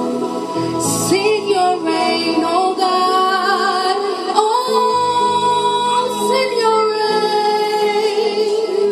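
Spontaneous worship music: a woman sings a wordless, wavering melody over sustained keyboard chords.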